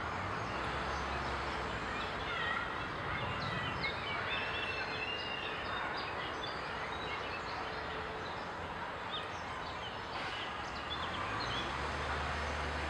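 Birds chirping: many short, high chirps and whistles scattered over a steady background hiss, thinning out near the end, where a low rumble comes in.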